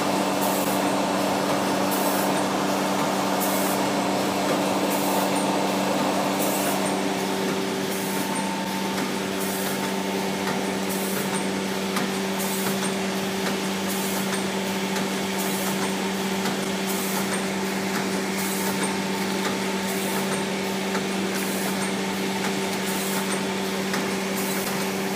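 Rotary premade-pouch powder packing machine running: a steady motor hum with a short high hiss repeating a little faster than once a second as the machine cycles. A rougher noise eases off about seven seconds in.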